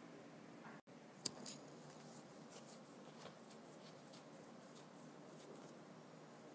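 Near silence: faint room tone, with two faint clicks a little over a second in and scattered light ticks afterwards.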